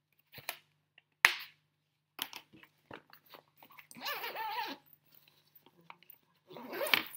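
Handling of a fabric diaper bag: a plastic document file pushed into the front pocket, with crinkling and rustling and a few sharp clicks, the loudest about a second in, then more rustling as the pocket is closed and the bag handled.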